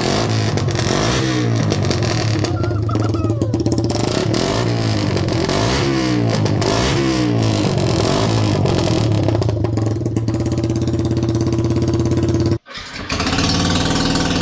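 Yamaha YZF-R125 single-cylinder four-stroke engine idling and revved with repeated throttle blips, the pitch rising and falling several times, then settling back to a steady idle. Near the end the sound cuts out for an instant and resumes idling.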